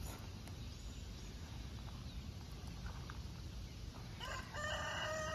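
Faint outdoor background, then about four seconds in a rooster starts crowing: one long, held call.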